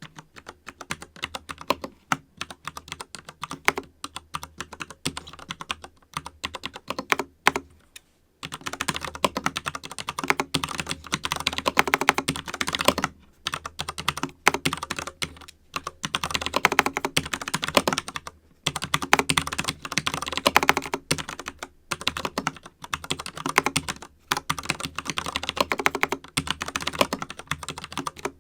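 FILCO Majestouch mechanical keyboard with Cherry MX Brown switches being typed on as in writing text: a continuous stream of keystrokes, sparser for the first several seconds, then faster and denser.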